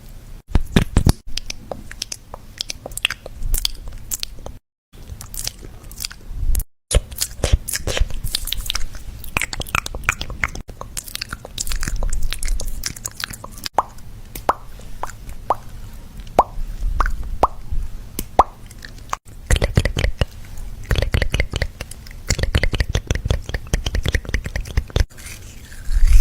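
Crunching and chewing sounds, made of rapid crisp clicks and crackles broken into short segments by abrupt cuts, with a run of short chirp-like squeaks about halfway through.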